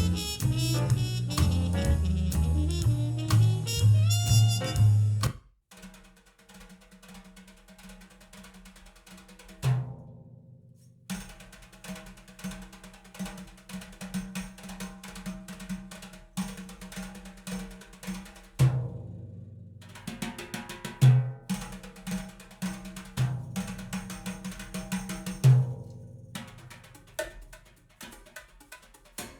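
Recorded music played back through Elfton Vegas II four-way floorstanding loudspeakers in a room. A dense, loud passage cuts off about five seconds in. Then a sparse percussion piece follows, with many light, quick hits and a deep drum stroke every few seconds.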